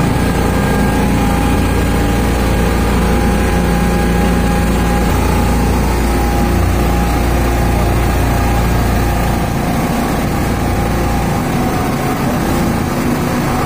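Passenger motorboat's engine running steadily under way, a constant drone with a deep rumble that drops off about nine seconds in.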